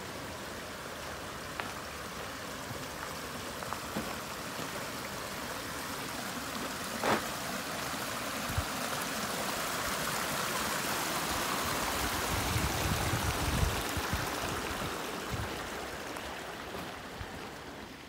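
Small mountain brook babbling over rocks and a little cascade, a steady rush of water that grows louder toward the middle and eases off near the end. A few soft knocks sound over it.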